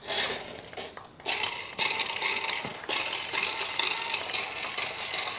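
Toy RC car's small electric motor and plastic gears whirring as the wheels are driven from the remote, in several spurts that stop and start.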